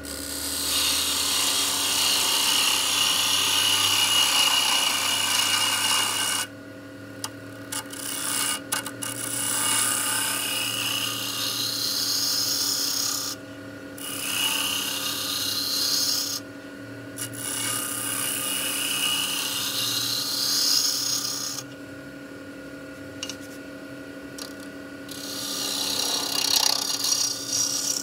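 Wood lathe running steadily while a hand-held turning tool cuts a spinning glued-up wooden vase blank: a scraping rasp that comes in passes, stopping and starting several times as the tool lifts off. Some passes carry a whistling tone that rises in pitch.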